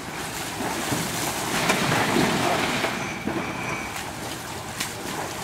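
Floodwater sloshing and splashing around the legs of several men wading through it. The wash of noise grows louder about a second and a half in, then eases off.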